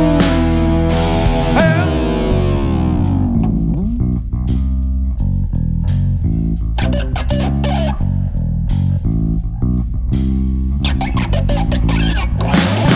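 Rock-style worship band playing an instrumental break: guitar with bent, gliding notes over bass guitar and drum kit.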